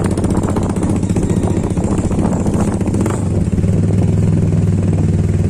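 Motorcycle engine running at a steady cruising speed, heard from on board while riding.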